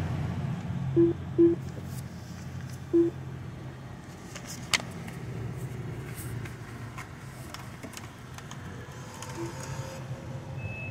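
Car wash pay station beeping: two short beeps close together about a second in, a third a second and a half later and a faint one near the end, over the steady hum of a car engine idling. A single sharp click comes about halfway through.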